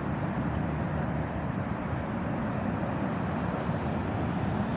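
Steady city street traffic noise, an even hum with no distinct events standing out.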